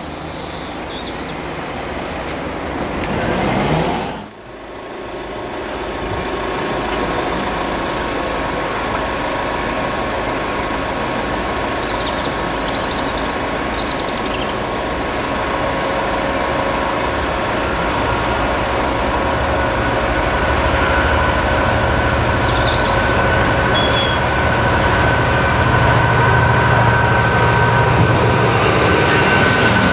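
A Class 66 diesel locomotive's two-stroke V12 engine running as it approaches at the head of a container train. It grows steadily louder, with a steady whine over a low drone that strengthens in the second half. Before a sudden cut about four seconds in, a diesel multiple unit is heard moving away.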